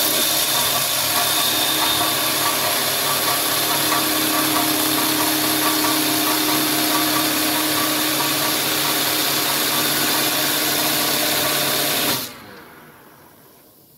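WS-L1530-4S CNC wood lathe running, a steady hiss over a humming drive. About twelve seconds in the sound cuts off sharply and fades away.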